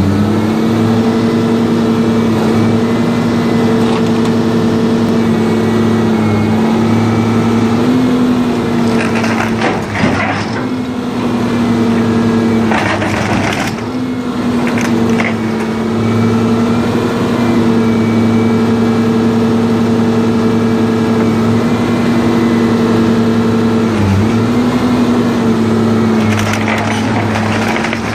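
A Roter RR-550/6 rotor shear baler, with its 550-tonne shear head, running with a steady machine drone whose pitch dips briefly under load several times. Scrap metal crunches and cracks as it is compressed and sheared, about a third of the way in, again around the middle, and near the end.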